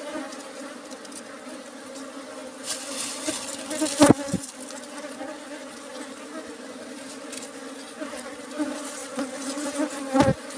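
A colony of wild honeybees buzzing steadily around their comb nest, a low drone with a couple of higher overtones. The colony is agitated and is being smoked. A sharp knock comes about four seconds in and another near the end.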